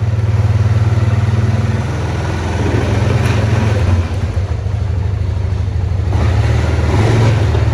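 Four-wheeler engine running at low speed while towing a truck cab, the engine note easing off about four seconds in and picking up again near the end.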